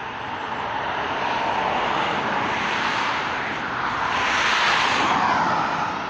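A vehicle passing by: a rushing noise that builds, peaks about five seconds in, then falls away as it passes.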